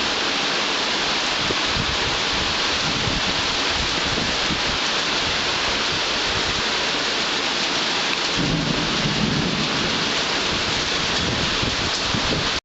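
Heavy rain falling steadily in a thunderstorm, with low rolling thunder rumbling underneath that swells loudest about eight to ten seconds in.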